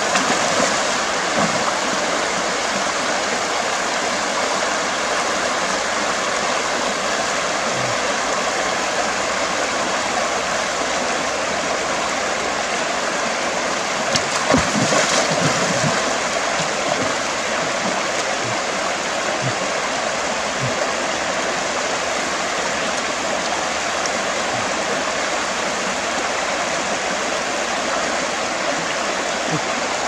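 Shallow river rushing over rocks: a steady wash of moving water, with a brief burst of splashing about halfway through as hands plunge into the water.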